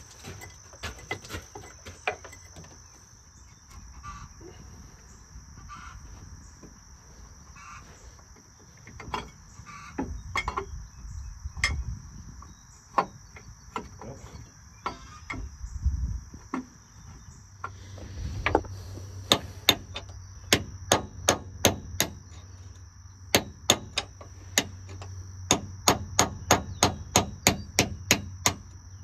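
Hammer striking a steel punch driving a pin at a dump truck's hydraulic hoist cylinder: scattered metal clinks in the first half, then from about two-thirds in a fast run of sharp, loud strikes, about two to three a second with short pauses. Steady insect chirring runs underneath.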